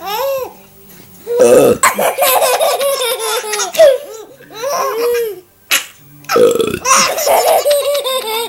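Two burps about five seconds apart, each followed by a baby's high-pitched laughter.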